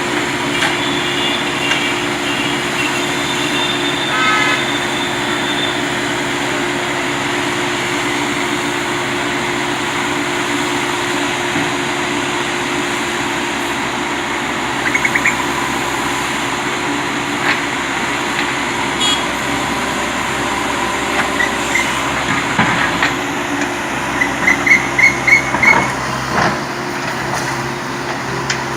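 Heavy vehicle engine running steadily, with a run of short sharp clicks or clanks near the end.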